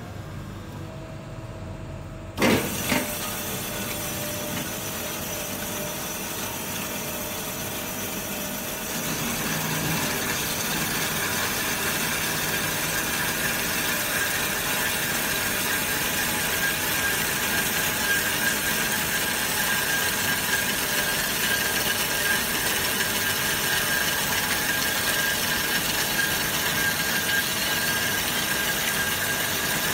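Automatic metal band saw cutting a round steel bar with coolant flowing. It starts with two loud clunks about two seconds in, then runs steadily. From about nine seconds in it gets louder and a steady high whine joins the noise as the cut goes on.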